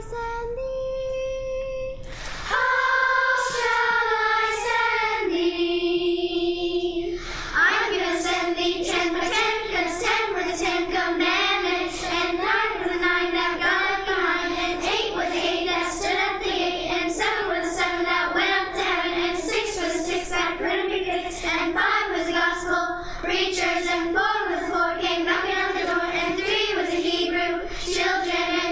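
Youth choir singing, mostly young voices. It holds long notes for the first several seconds, then moves into a quicker passage with words.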